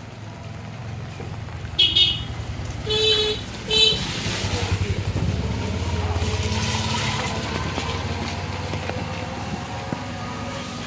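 A motor vehicle's engine approaching and passing, with three short horn honks about two to four seconds in.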